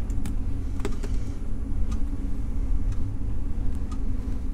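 Steady low rumble, with a few faint small clicks from a plastic watch strap and steel case back being handled.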